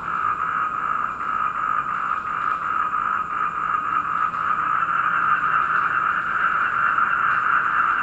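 A chorus of black-spectacled toads calling together in a dense, steady trill, with crickets chirring in a thin, high, continuous line above.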